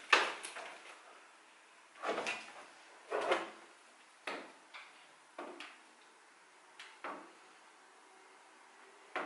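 IKEA HOVSTA picture frames knocking and tapping against a wall as they are held up and moved about: about nine short, irregular knocks, the first the loudest, stopping about seven seconds in.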